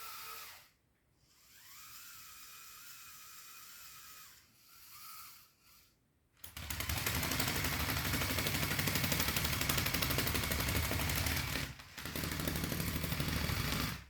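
Lego Technic excavator's Powered Up electric motors whining in short runs, the pitch gliding up as they spin up, with pauses between. Then a much louder, rapid plastic rattle of the model's drivetrain runs for several seconds, with one short break shortly before the end.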